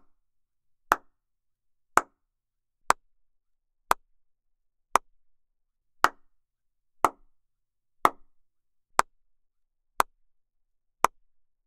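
Single hand claps, about one a second, a dozen in all, each one sharp and dying away almost at once. This is a clap test in small foam-lined rooms, listening for reflections bouncing back.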